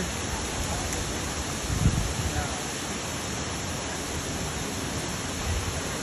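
Waterfall with a steady rushing roar of falling water, with faint voices in the background and a brief low bump about two seconds in.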